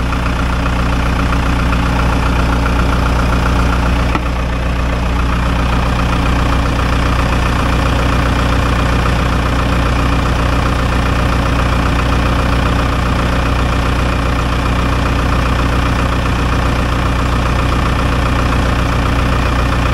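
John Deere crawler dozer's diesel engine running at a steady speed, heard up close in the open engine bay, while the hydrostatic drive pump is balanced with the machine running.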